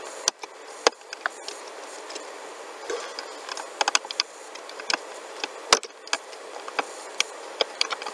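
Computer keyboard keys clicking: scattered single taps and short quick runs of keystrokes, over a steady hiss.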